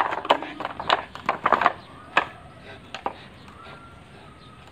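Pit bull terrier tugging and shaking a plastic bag tied to a rope: a quick run of sharp crinkling and snapping sounds for the first couple of seconds, then a few single snaps.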